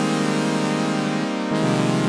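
A patch from Reason 12's Subtractor software synthesizer playing a sustained chord, which changes to a new chord with a lower bass note near the end.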